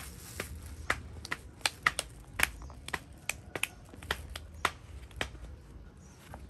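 A run of sharp, irregular clicks and ticks, roughly three to four a second, that stops about a second before the end.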